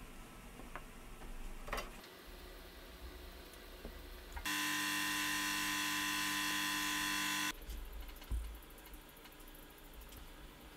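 A steady electric buzz with a strong pitched hum lasts about three seconds, starting a little before halfway and cutting off abruptly. Faint handling clicks and a sharp tap come around it.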